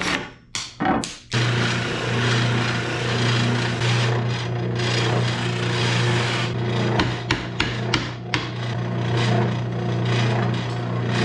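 Two handsaw strokes through a wooden broom handle, then a benchtop oscillating sander is switched on about a second in and hums steadily, with the rough rasp of the wood end being sanded against it. A quick run of sharp knocks comes a little past the middle.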